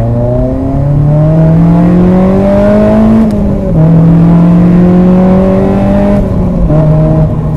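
Honda Civic Si's K-series four-cylinder engine heard from inside the cabin while accelerating. The engine's pitch climbs, drops at an upshift about three seconds in, climbs again, and drops once more at a second upshift near the end.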